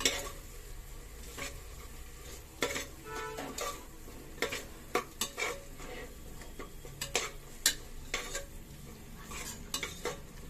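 Spatula scraping and knocking against the inside of a pressure cooker while onion-tomato masala with ground spices is stirred and sautéed, the paste sizzling in the oil underneath. The strokes come irregularly, about one or two a second.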